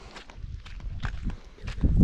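Footsteps walking at an even pace, about three steps a second. A low rumble builds near the end.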